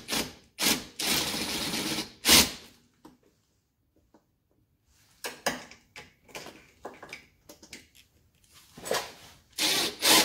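Cordless impact driver run in short bursts and one longer run of about a second, driving screws into an ATV's plastic inner fender, with scattered light clicks of handling in the quieter middle.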